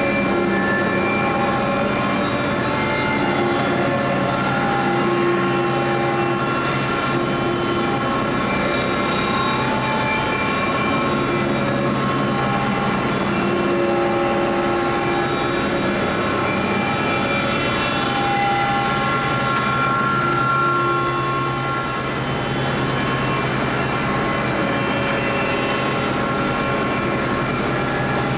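The abrasive wheel of a Fox overhead traveling grinder is spot-grinding a steel bar. It makes a loud, steady grinding noise over the hum of the drive motor, with higher ringing tones that come and go as the wheel works along the metal.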